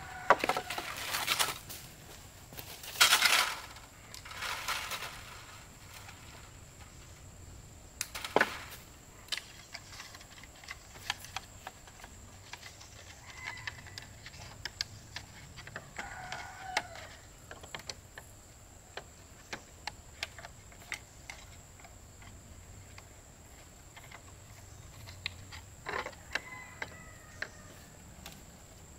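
Rustling and handling noises of outdoor work with wood and leaves: a few loud rustles in the first five seconds, a sharp knock about eight seconds in, then scattered light taps and clicks.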